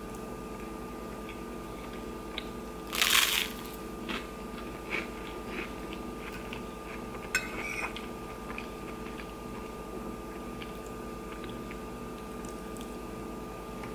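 Close-miked eating of toast and corned beef hash: a loud crunching bite about three seconds in, then smaller chewing and crunching sounds and a quick run of clicks from a metal spoon against the plate, over a steady hum.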